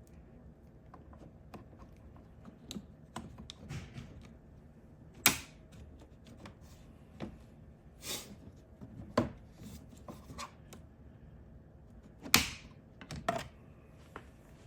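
Irregular sharp clicks and clacks from handling long-reach hose clamp pliers on a hose clamp, with about five louder snaps among fainter ticks.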